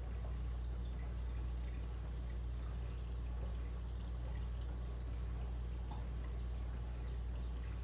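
Reef aquarium water trickling and dripping faintly over a steady low hum, with the tank's circulation pumps running.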